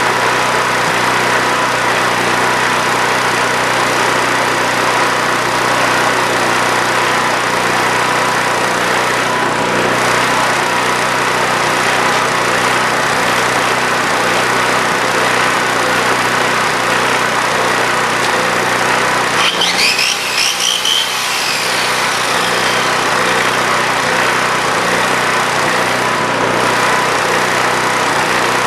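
Honda EM3000 generator's engine running steadily on fresh gas after a long layup, still cold, stumbling a bit and a little surgy from its partly cleaned carburettor. About two-thirds of the way through, the sound briefly dips and wavers.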